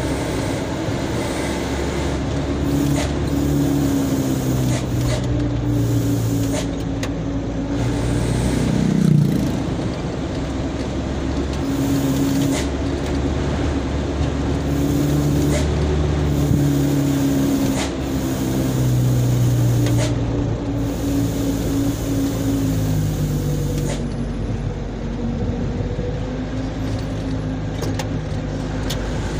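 A truck's engine heard from inside the cab while driving. Its note rises and falls with the throttle, with a quick rise about nine seconds in. Light clicks and rattles come from the cab.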